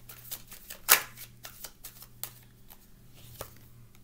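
A deck of tarot cards being shuffled in the hands: a quick run of crisp card snaps and flutters. The loudest snap comes about a second in, and the snaps thin out toward the end.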